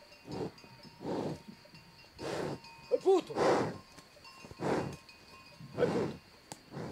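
Fighting bull digging into bare soil with its horns and head: a rough, noisy burst about once a second, with a brief pitched sound about three seconds in.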